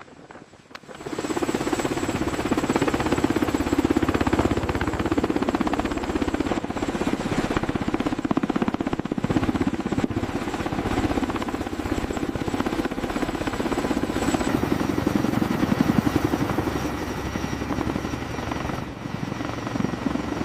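Heavy-lift helicopter running with a steady, rapid rotor chop, coming in loud about a second in.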